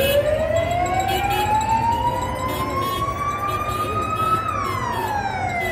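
Siren wailing: its pitch climbs slowly for about four seconds, then drops off near the end, over general street noise.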